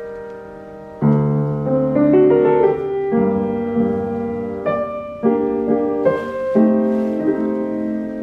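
Yamaha upright piano played with both hands. A held chord fades, then about a second in a louder chord is struck, followed by a string of chords changing every half second or so.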